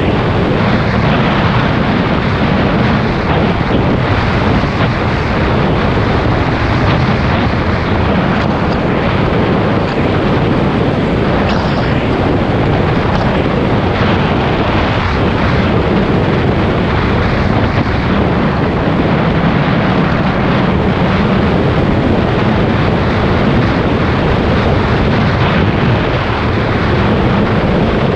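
Wind rushing over the microphone of a camera moving along a road, a loud steady roar with low rumble, mixed with tyres rolling on concrete.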